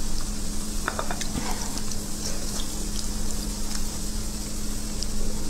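Steady background hiss with a faint low hum, and a few faint clicks of a metal spoon against a braised beef marrow bone as it is picked up and the marrow is scooped out.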